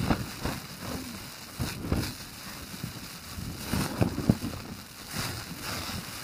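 Wind gusting across the microphone in irregular, uneven surges of low buffeting.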